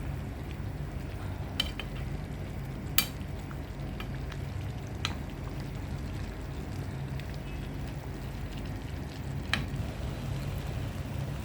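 Pancit bihon rice noodles being stir-fried in a pan: a steady low rumble under faint frying, with five sharp clicks of a utensil against the pan, the loudest about three seconds in.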